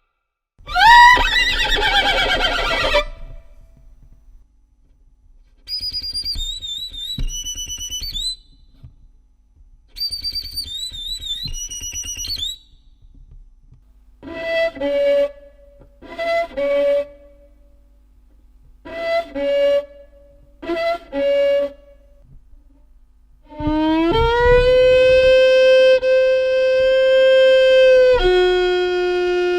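Violin played to imitate sounds: a falling glide near the start, then two runs of high warbling trills, then four pairs of short two-note calls, and finally a long held note that drops to a lower held note near the end.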